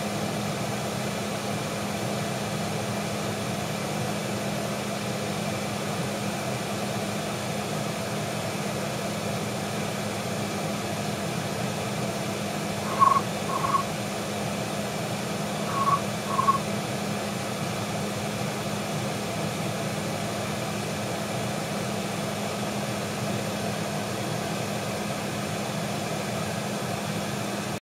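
Steady fan-like hum and hiss with a low steady tone, broken twice by a quick pair of short high chirps about three seconds apart; the sound cuts off abruptly just before the end.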